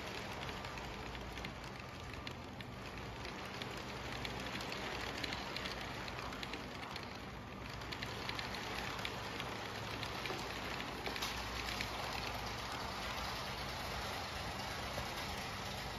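LEGO train rolling steadily on plastic LEGO track, its plastic wheels making a dense patter of small clicks over a low hum.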